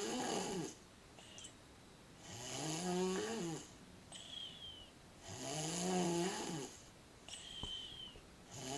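A sleeping girl snoring: a rasping, pitched snore about every three seconds, its pitch rising then falling, with quiet breaths in between.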